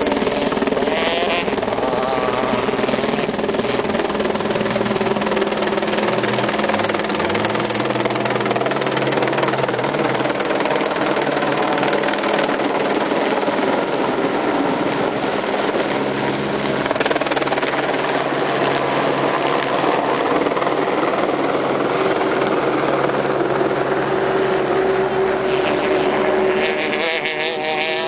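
Rally-raid cars running flat out along a dirt stage, their engines loud and continuous, over a steady engine drone that holds an unchanging pitch.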